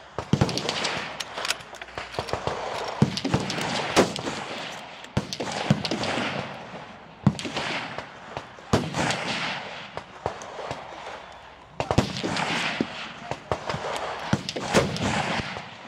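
Rifle gunshots firing irregularly, a dozen or more sharp cracks, some loud and close, others fainter.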